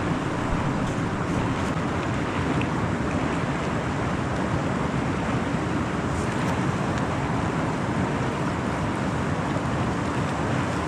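Steady rushing noise of wind and waves on open reservoir water, with wind buffeting the microphone.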